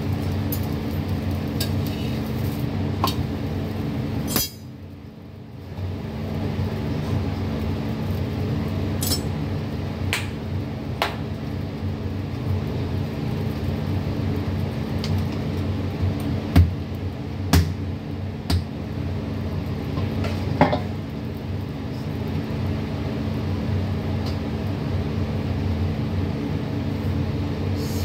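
Steady hum of a small electric fan, with a scattering of sharp clinks and knocks of steel kitchen utensils on a stone counter, loudest in the second half. The hum drops away for about a second and a half near the start.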